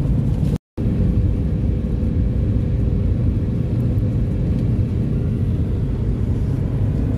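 Steady low road and engine rumble heard from inside a moving car's cabin. The sound cuts out completely for a split second less than a second in, then the rumble carries on unchanged.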